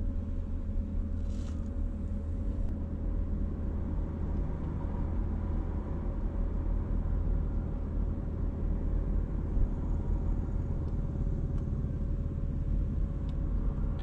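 Steady low rumble with a constant mid-pitched hum, heard inside a parked car's cabin.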